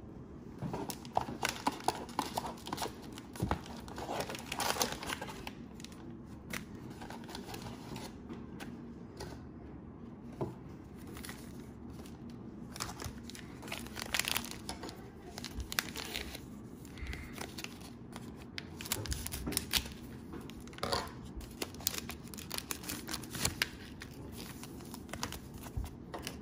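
Cellophane wrappers of Panini Prizm cello packs crinkling and tearing as the packs are opened, with trading cards being handled, in irregular short rustles and crackles.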